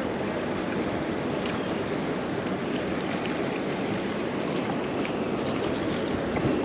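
Steady rush of flowing river water, an even hiss at constant level, with a few faint ticks.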